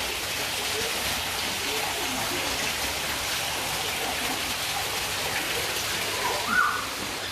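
Indoor rock-wall waterfall fountain, water falling down the rock face into its pool as a steady, even rush.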